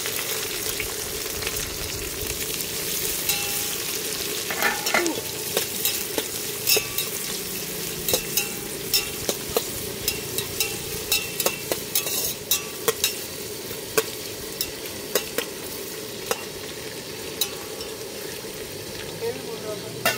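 Sliced onions frying in hot oil with whole spices in a steel pot, a steady sizzle. A ladle stirring them knocks and clinks against the pot many times, most often in the middle stretch.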